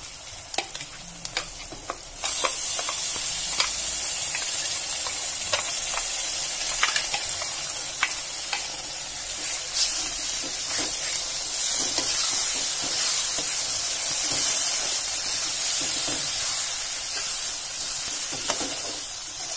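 Frying green chillies and onions in hot oil in a kadai, with a steel spoon scraping and tapping the pan. About two seconds in, the sizzle jumps suddenly and stays loud as the wet ground coconut masala paste goes into the hot oil and is stirred in, the spoon still scraping now and then.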